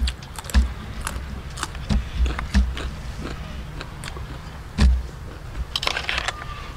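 Close-up eating sounds: crunching bites of raw long bean and chewing, with sharp clicks of a metal spoon against a tray of snails and several dull knocks on the table.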